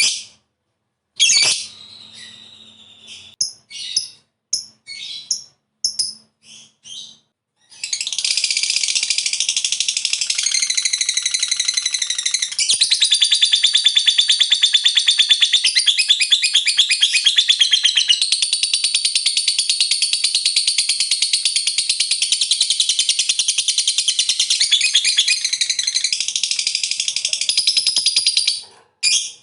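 Lovebird calling: a few short, sharp chirps, then from about eight seconds in a long unbroken, rapid trilling chatter (the 'ngekek panjang' long chatter) that runs for about twenty seconds and stops near the end.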